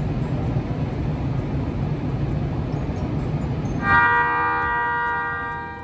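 A train rumbling, then about four seconds in a train horn sounds one loud blast of a few held notes together, lasting about two seconds before fading.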